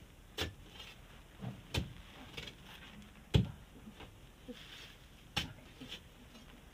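A miner's long digging bar knocking and prying at a packed sand-and-gravel quarry face. Four main dull knocks come a second and a half to two seconds apart, the third the loudest, with fainter knocks between them.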